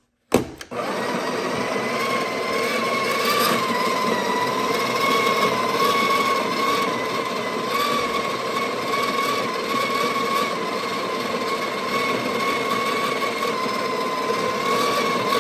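Breville espresso machine's built-in burr grinder running steadily, grinding coffee beans. It starts with a click just under a second in and cuts off near the end.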